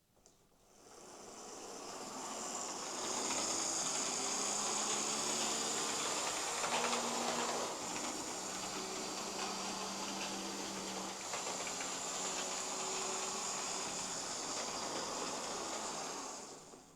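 Lima OO gauge Class 37 model diesel locomotive running on DC with its original pancake motor: a steady high motor whine with running gear and wheels on the track. It builds up as the power comes on in the first few seconds and dies away near the end. It is running okay and pretty smooth, though it maybe needs a wee bit of a service.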